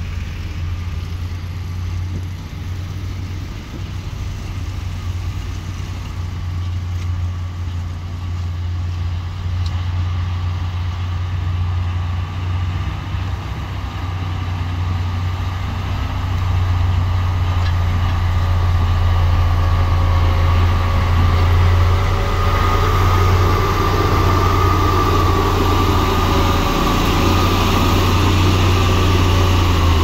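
Komatsu motor grader's diesel engine running steadily with a deep, even drone, getting louder over the second half as the machine comes close.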